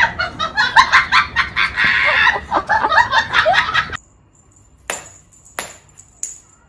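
High, rapid, cackling laughter for about four seconds, then it cuts off suddenly and three sharp taps follow about two thirds of a second apart.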